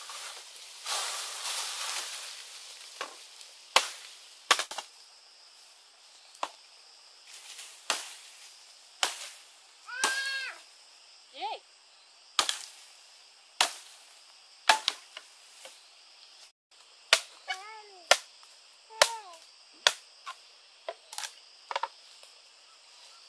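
Machete chopping bamboo: sharp woody cracks at irregular intervals, roughly one a second, as branches are lopped off a felled bamboo pole. Leaves rustle for the first couple of seconds as the pole is pulled through the undergrowth.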